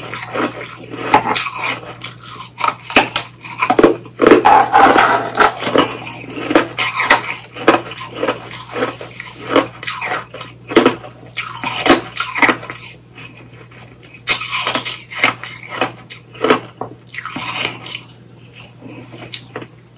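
Ice being bitten and chewed close to the microphone: a long run of sharp, irregular crunches with a short lull about two-thirds through.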